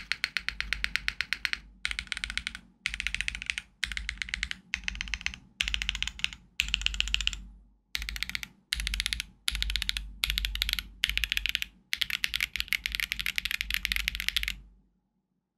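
Typing on a Neo65 mechanical keyboard with Owlab Neon switches, an aluminium plate and PBTfans Spark keycaps: fast runs of clacky keystrokes in short bursts with brief pauses. The typing stops about a second before the end.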